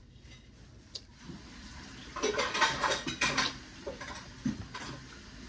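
Close-up wet eating sounds: lips smacking and sucking as fish is eaten off the fingers, in a dense crackly cluster lasting about a second, starting about two seconds in, with a few lighter clicks around it.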